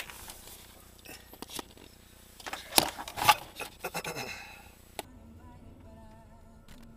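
Handling noise from a helmet-mounted action camera: plastic rubbing, scraping and clacking in irregular bursts, loudest about three seconds in. About five seconds in it cuts abruptly to a quiet low hum with faint wavering tones.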